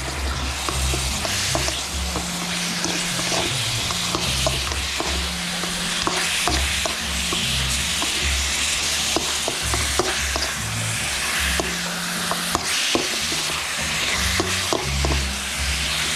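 Chunks of meat sizzling in a hot wok, stirred with a metal utensil that clicks and scrapes against the pan many times.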